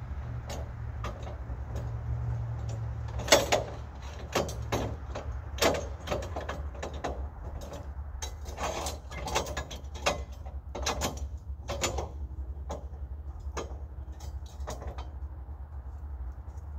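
Irregular knocks and clicks as a large elm slab is handled on a portable band sawmill's bed, over a steady low hum. The knocks start about three seconds in, and the loudest comes first. They thin out near the end.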